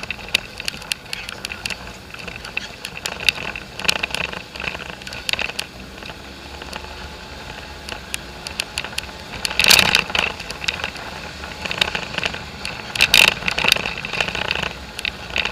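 Polaris four-wheeler driving over a rocky dirt trail: its engine runs under constant rattling and clattering from the body and loose parts jolting over the bumps, with two louder jolts, one just before the middle and one about two-thirds through.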